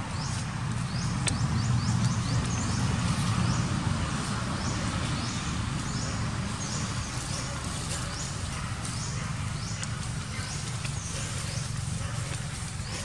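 Outdoor ambience: a steady low rumble that swells between about two and four seconds in, with a short high chirp repeated about once a second.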